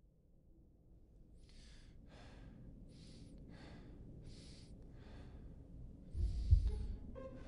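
Heavy, rhythmic breathing over a low rumble: about six quick breaths roughly two-thirds of a second apart. Then, about six seconds in, a deep thump comes with a longer breath. A bowed string note starts near the end.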